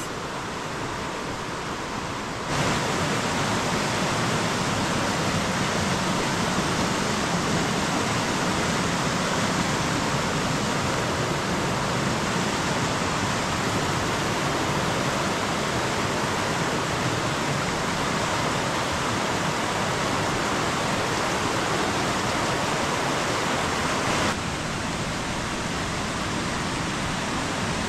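A river in full spate: a steady rush of fast-flowing water. It grows louder about two and a half seconds in and drops back a little near the end.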